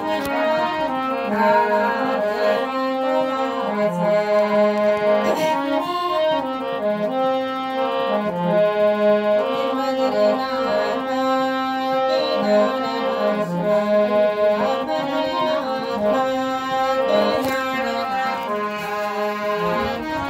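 Harmonium playing a melody of held reed notes over a steady drone.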